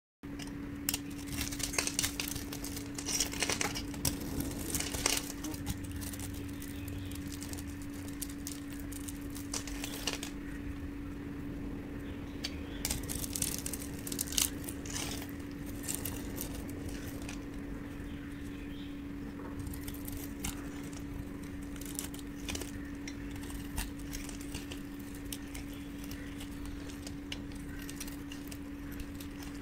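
A dry bar of soap being cut with a utility-knife blade: crisp, irregular crunching and scraping as small cubes and thin slices break away. A steady low hum runs underneath.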